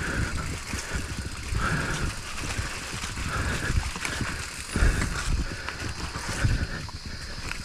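Mountain bike rolling over a rough dirt trail: irregular rumble and rattle from the tyres and frame, with a harder thump about five seconds in.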